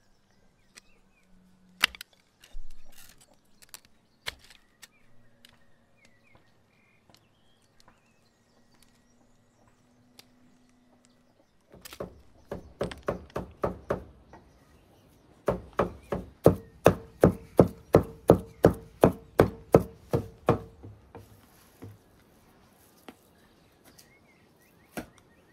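Meat cleaver chopping minced meat on a wooden stump block: a run of rapid, even strikes, about four a second, starting about halfway through after a few scattered light clicks.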